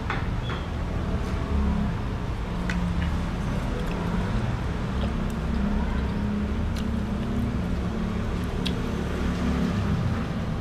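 Closed-mouth chewing of satay and rice cake over a steady low rumble, with a few faint clicks as bamboo satay skewers are handled.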